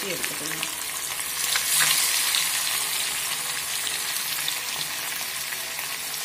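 Masala-coated fish deep-frying in hot oil: a steady sizzle with scattered small crackles, swelling louder about two seconds in.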